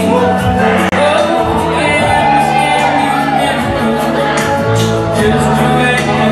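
Wrestling entrance music: a song with singing over a steady beat, with a momentary dropout about a second in.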